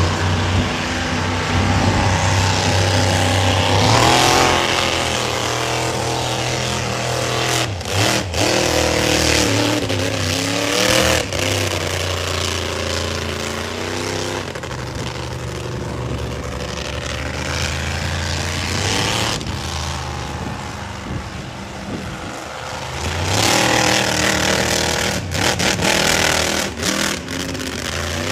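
Monster truck engine running hard, revving up and down over and over, with quick throttle blips near the end.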